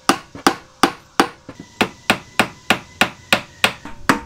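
Claw hammer tapping trim onto a wooden van bench seat, a steady run of sharp strikes at about three a second.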